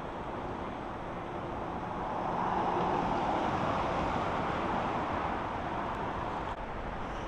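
Street traffic noise, with a vehicle passing that swells a couple of seconds in and fades away.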